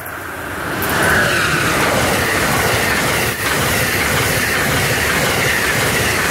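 Amtrak passenger train passing close by at speed: a loud, steady rush of wheels on rail and air that swells about a second in and holds as the cars go by, with a short dip a little past the middle.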